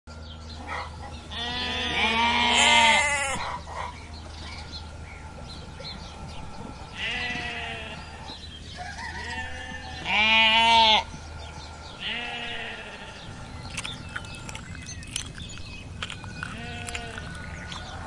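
Sheep bleating: about six separate quavering bleats, the loudest two a couple of seconds in and about ten seconds in, the last few fainter.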